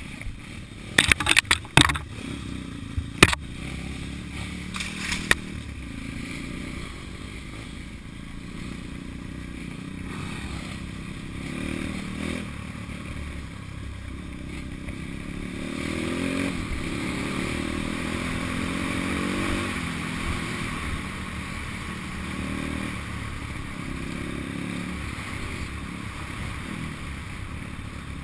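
Pit bike engine running on a rough dirt trail, its pitch rising and falling several times as the throttle is opened and closed, loudest in the second half. In the first five seconds a handful of sharp knocks and clatters cut through as the bike jolts over the ruts.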